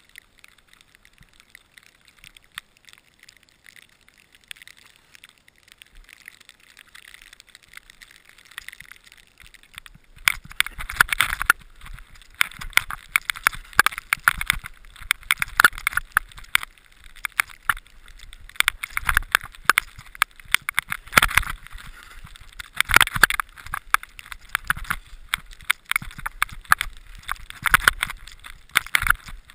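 Skiing down a snowy run heard through a helmet-mounted camera: skis scraping and hissing over the snow, with wind buffeting the microphone, in swells every couple of seconds and with many small knocks and crackles. For the first ten seconds or so there is only a faint hiss before the run starts.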